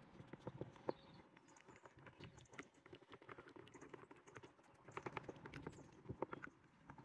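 Flat mixing stick stirring freshly catalysed GRP top coat resin in a plastic bucket: faint, irregular clicks and taps of the stick against the bucket, a little louder about five and six seconds in.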